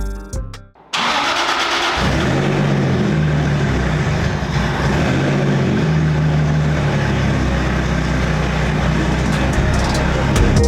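Engine of a motor vehicle running steadily after the background music fades out, coming in suddenly about a second in.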